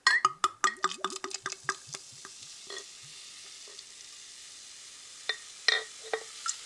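Schöfferhofer pomegranate wheat-beer mix glugging out of a glass bottle into a glass beer mug: quick gurgles for about the first two and a half seconds, then a steady fizzing of the carbonated foam, with a few short ticks near the end.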